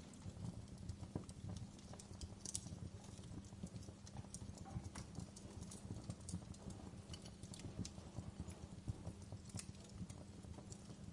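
Wood fire crackling in a stone fireplace: irregular sharp pops and snaps over a low steady rumble.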